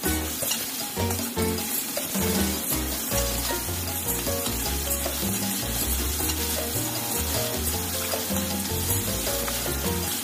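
Food sizzling as it is stir-fried in a wok, a spatula stirring and tossing it against the pan, over background music.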